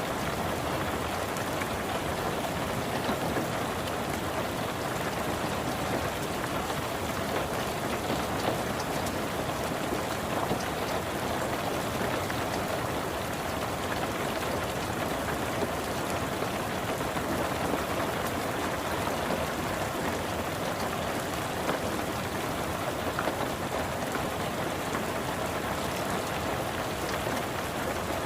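Steady rain falling on a car, heard from inside the cabin, with scattered individual drops ticking through the even hiss.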